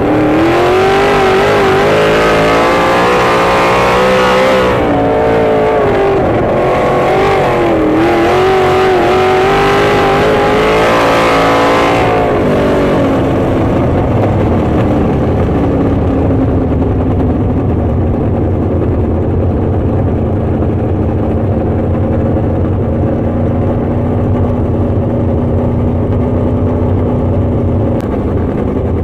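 Winged sprint car engine heard from inside the car, its pitch rising and falling as it is throttled through the turns. About twelve seconds in, it drops to a lower, steady run as the car slows.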